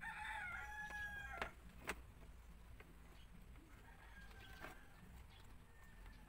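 A rooster crows once, a call of about a second and a half that holds and then falls in pitch. Right after it come two sharp clicks from the plastic headlight cowl being pressed into place on the motorcycle.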